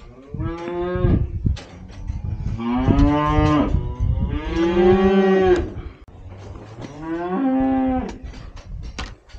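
Cattle mooing: four long moos, one after another, the middle two the longest and loudest.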